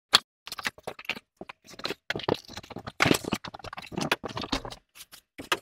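Plastic packing wrap crinkling and cardboard scraping in irregular bursts, with light knocks, as a wrapped treadmill frame is handled and lifted out of its carton.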